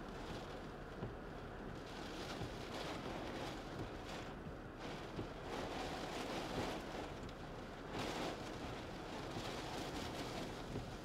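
Storm wind and rain noise gusting around a storm-chase vehicle, swelling and easing every few seconds, with wind rumbling on the microphone.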